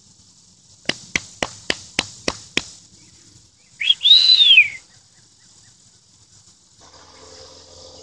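A person calling a dog: seven quick, evenly spaced sharp clicks, then one loud whistle that rises and falls over about a second.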